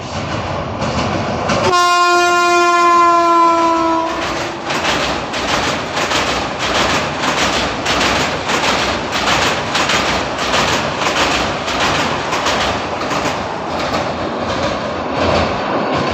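A Vande Bharat Express electric train set sounds its horn once, a loud blast of about two and a half seconds whose pitch sags slightly. Its wheels then clatter over the rail joints of a steel girder bridge in a fast, even clickety-clack as the train rushes past.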